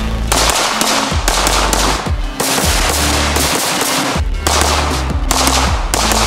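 Rapid-fire bursts from a 5.56 AR-style rifle fitted with an Ultradyne Apollo Max muzzle brake: several long strings of shots with short breaks between them, over background music with a steady bass line.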